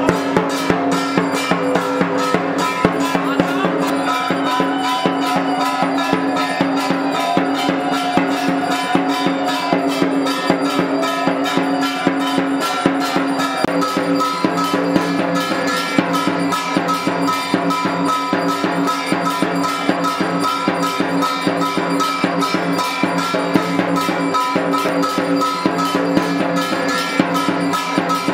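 Puja percussion: a dhak drum beaten in a fast, steady rhythm under continuous metallic ringing, as played during Kali Puja arati.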